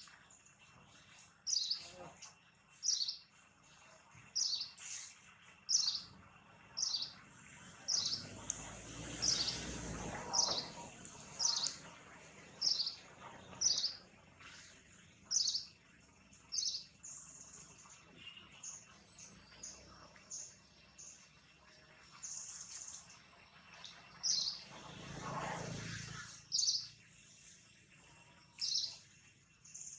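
A bird repeating a short, high chirp about once a second, over and over. Twice, about eight seconds in and again about twenty-five seconds in, a softer rush of noise rises under the calls for a couple of seconds.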